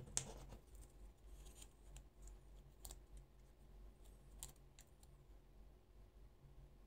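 Small plastic toy parts clicking as they are handled and snapped together by hand. There is one sharp click just after the start and a few fainter clicks later, over near silence.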